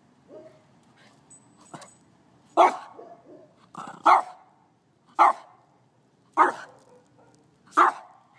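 Small puppy barking at ants in the lawn, a defensive reaction. There are five loud single barks about a second to a second and a half apart, starting a couple of seconds in, with a few softer yaps between them.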